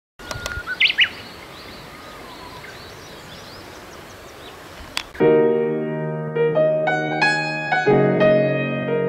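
Steady outdoor background hiss with a few brief bird chirps near the start. About five seconds in, piano music comes in: slow single notes and held chords.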